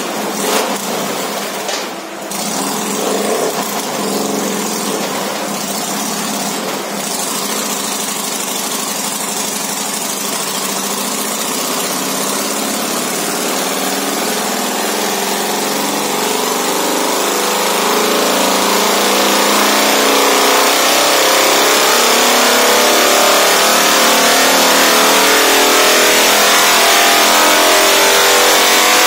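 Harley-Davidson Road Glide (FLTRX) V-twin engine running under throttle on a chassis dynamometer during a tuning run, growing steadily louder as the pull goes on.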